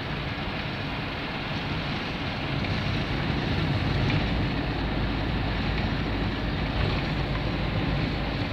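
Cabin noise of a Ford Sierra 1.8 on the move: steady engine, tyre and wind noise, growing a little louder about three seconds in.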